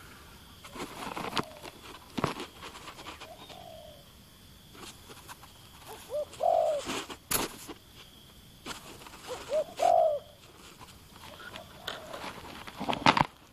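Spotted dove cooing twice, each call two short notes followed by a longer, arched coo, with a fainter coo about three seconds in. Sharp knocks and rustles come between the calls, the loudest near the end.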